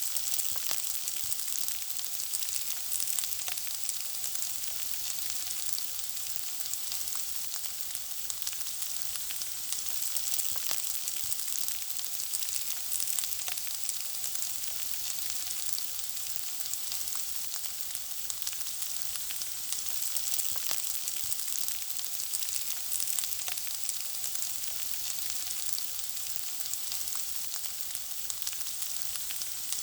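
Food frying in hot fat: a steady, high sizzle with frequent small crackles and pops scattered throughout.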